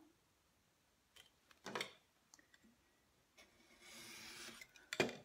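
Craft knife blade drawn along a metal ruler, slicing through card stock: a quiet scratching hiss about a second and a half long near the end. A light knock comes before it and a sharper knock after it.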